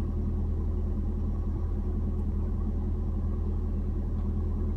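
Steady low hum inside a Toyota Prius cabin, one even tone that does not change. No reverse-gear beeps sound.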